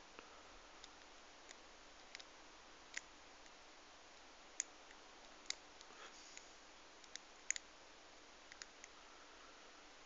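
Faint, scattered clicks of a lock pick working the pin stack of a five-pin brass barrel padlock, about a dozen irregular ticks with near silence between them.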